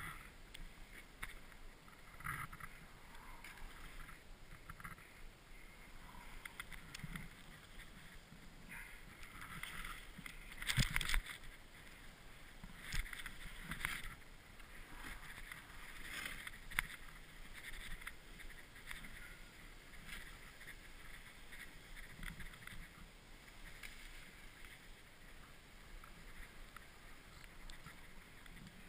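Snowboard riding through deep powder snow: an uneven hiss and swish of the board cutting through the snow that swells with each turn, loudest about eleven seconds in.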